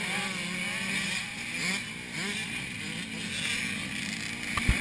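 Several small motocross dirt bikes racing through a turn, their engines revving over one another, pitch rising and falling as they accelerate. A short sharp knock near the end.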